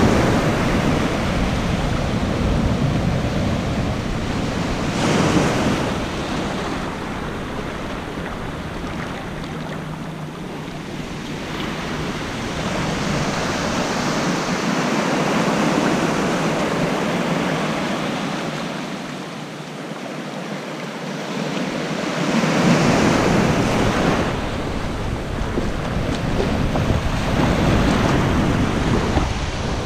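Ocean surf: small waves breaking and washing around in the shallows, swelling and fading every few seconds. Wind rumbles on the microphone except for a stretch in the middle.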